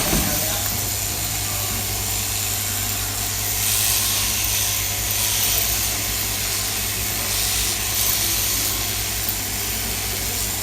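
Electric sheep-shearing handpiece running steadily as it shears a lamb's belly wool, a constant hum under a buzzing cutter that grows brighter twice as the comb works through the fleece.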